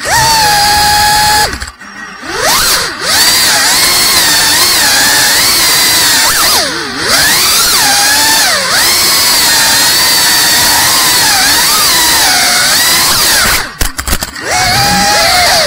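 FPV racing quadcopter's brushless motors whining, the pitch rising and falling as the throttle changes. The sound drops away briefly about two seconds in, again around seven seconds in, and near the end.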